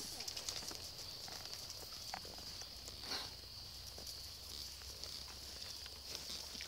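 Distant horse cantering on arena dirt: faint, irregular hoofbeats, with a slightly louder thud about three seconds in. A steady high-pitched hum runs underneath.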